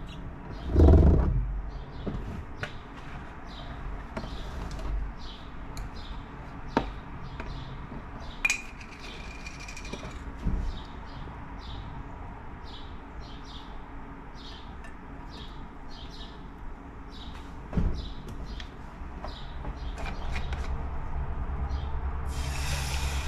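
Short high chirps, like small birds, recur over a low steady hum, with a few knocks and clatters; the loudest is a thump about a second in. About 22 seconds in, oil poured into the hot cast-iron skillet starts sizzling with a steady hiss.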